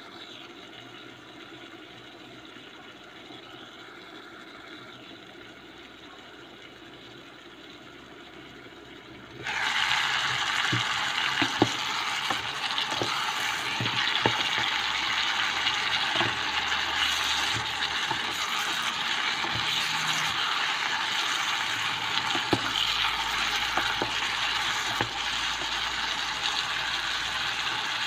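Stir-fried vegetables and textured vegetable protein cooking in a pan, at first a soft steady hiss under the glass lid. About nine seconds in, the lid comes off and the hiss becomes loud sizzling, with repeated knocks and scrapes of a spatula stirring.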